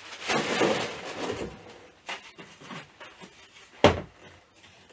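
Plastic bag rustling as a large hollow plastic dinosaur toy body is pulled free, a few small clicks, then a single sharp thud a little before four seconds in as the toy body is set down on the table.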